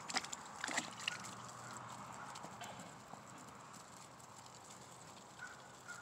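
Faint taps and rustles of chickens pecking at feed on leaf-littered dirt, with a few sharp taps in the first second. A few faint, short high calls come near the end.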